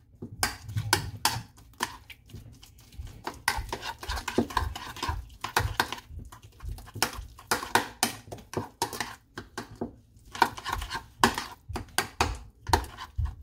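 Metal spoon clinking and scraping against a ceramic bowl in quick, irregular strokes as softened butter is mashed together with herbs and spices, with a couple of short pauses.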